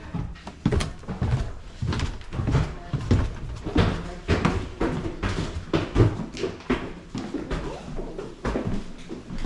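Footsteps thudding on the wooden stairs and floorboards of an old house: a string of irregular heavy thumps and knocks.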